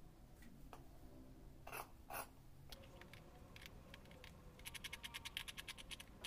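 Tailor's shears cutting through corduroy fabric: a few separate snipping clicks, then a rapid run of about ten clicks a second lasting over a second near the end.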